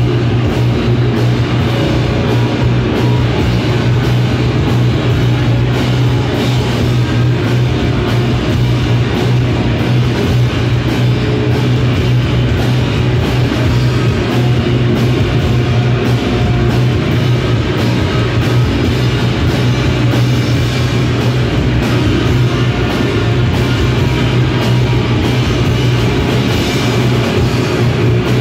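Live heavy noise-rock band playing loud: drum kit and distorted electric guitar in a dense, unbroken wall of sound over a steady low drone.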